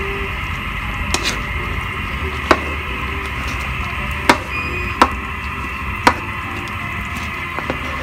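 A spatula stirring pork and guava in a metal pot, knocking sharply against the pan several times, the strongest four knocks spread through the middle. Under it runs a steady hiss.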